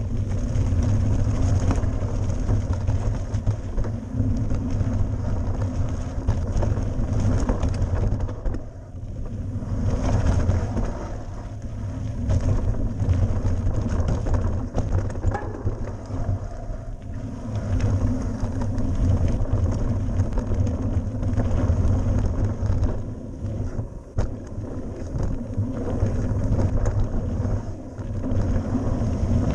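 Mountain bike riding fast down a dirt forest trail: wind rumbling over the on-bike camera's microphone, mixed with tyre and trail noise from the bumpy ground. The rumble dips briefly about nine seconds in and again around twenty-four seconds.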